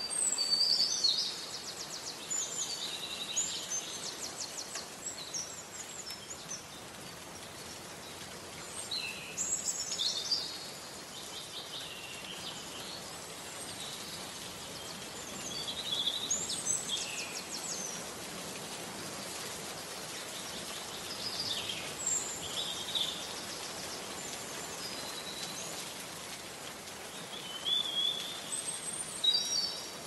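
Songbirds singing short phrases of chirps and rapid trills about every six seconds over a steady hiss of rain.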